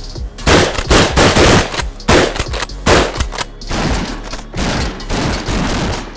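A quick string of shotgun blasts, about a dozen shots close together in the first half, then about five more, spaced out. The shots are striking a wall of aerated concrete (Ytong) blocks.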